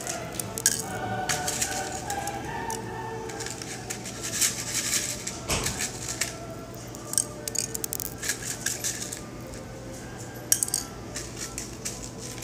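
Scattered light clicks, taps and rattles of a small plastic container and kitchen things being handled, with faint background music.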